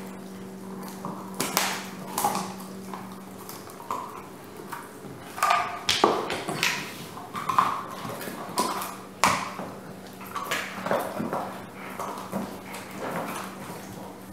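German Shepherd gnawing a hard dried chew, with irregular crunches and sharp clicks of teeth on the chew, loudest around the middle.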